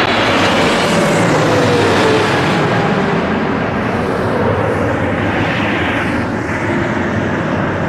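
Boeing 777's twin GE90 jet engines passing low overhead on final approach: loud, rushing jet noise, with an engine whine that falls in pitch as the airliner moves away toward the runway.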